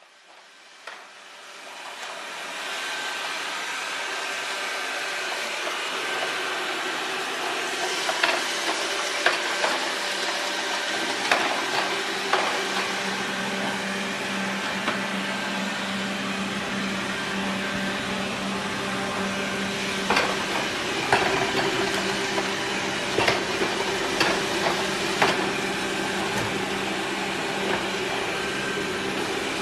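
Xiaomi Mijia 1C robot vacuum running steadily with a continuous motor hum, rising in over the first two or three seconds. Scattered light clicks and knocks sound over it.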